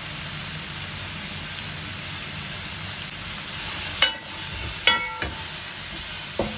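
Rabbit pieces and cherry tomatoes sizzling steadily in oil in a large nonstick pan. About four seconds in, a wooden spatula stirs them, with a few sharp knocks and scrapes against the pan that ring briefly.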